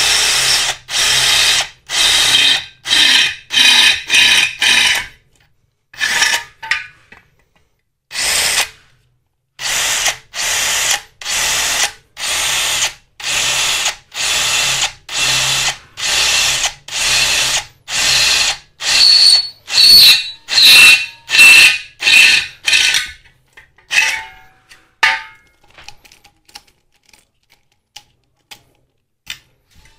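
Kyocera 18V cordless drill running in many short bursts of under a second each, one after another, as a twist bit drills into steel. The bursts pause for a few seconds near the start and stop about 23 seconds in, leaving only a few light clicks.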